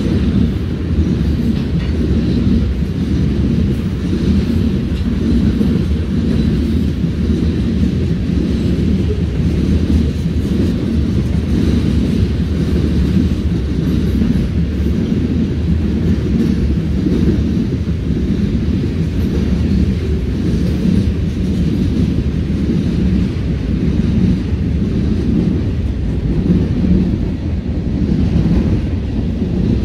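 Freight train of covered hoppers and boxcars rolling past: a steady, loud low rumble of steel wheels on the rails.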